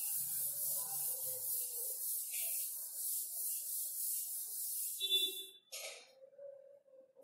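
Chalkboard being wiped with a board duster: a steady scrubbing hiss in repeated strokes across the board, stopping about five and a half seconds in, followed by a brief knock.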